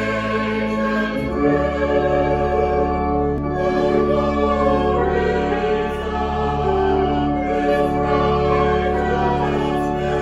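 Choral church music: a choir singing slow, sustained chords over a low bass, the harmony changing about a second in.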